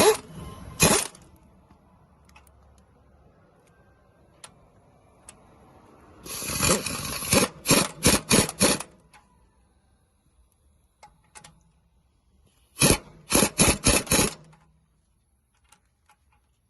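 Wrench tightening bolts on a truck's rear axle assembly: two sharp strokes at the start, then two runs of about five quick rasping strokes, one around the middle and one near the end.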